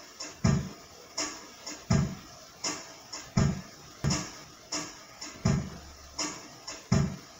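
Digital keyboard's built-in train sound effect looping: a steady clickety-clack of low thumps and sharp clicks, one beat about every three-quarters of a second.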